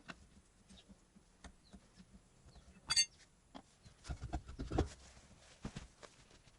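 Hand work with metal tools and parts: scattered light clicks, one sharp ringing metallic clink about three seconds in, then a short run of dull thuds and knocks near five seconds.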